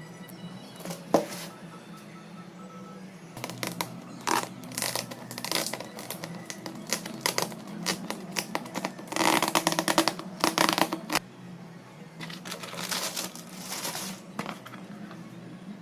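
Packaging being handled during an unboxing: irregular bursts of rustling and crinkling, densest about nine to eleven seconds in, over a low steady hum.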